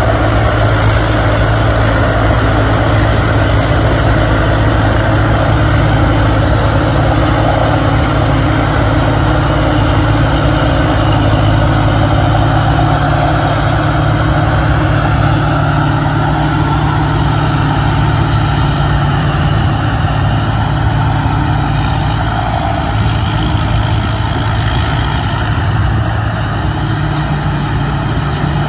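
Rice combine harvester's diesel engine running steadily under load while it cuts and threshes the crop, with the rattle of its cutter and threshing machinery; it grows slightly fainter near the end as the machine moves off.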